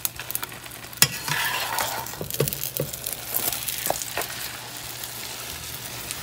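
Beaten egg sizzling as it fries in oil in a pan while a spatula lifts and flips the thin omelette. A sharp knock about a second in, the sizzle grows louder after it, and a few light taps of the spatula against the pan follow.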